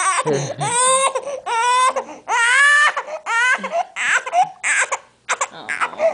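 A four-and-a-half-month-old baby crying, a string of about six wailing cries, each rising in pitch as it starts, with short catches of breath between.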